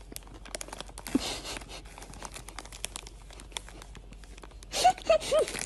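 Plastic chip bag crinkling and crackling as a kitten rummages with its head inside it, with louder rustling about a second in and again near the end. A brief voice sounds near the end.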